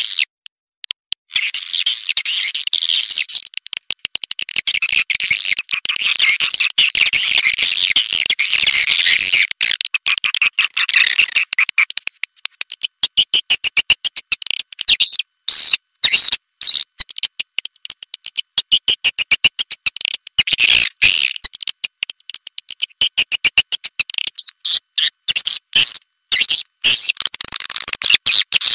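Swiftlet calls from a swiftlet lure recording, used to call swiftlets in. A dense, rapid, high-pitched twittering chatter turns, about twelve seconds in, into quick clicking pulses broken by abrupt short gaps.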